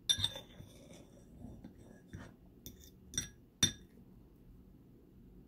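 Metal fork clinking and scraping against a ceramic plate while picking up a bite of cherry pie. There are several sharp clinks with a brief ring: the loudest right at the start and two more a little past three seconds in.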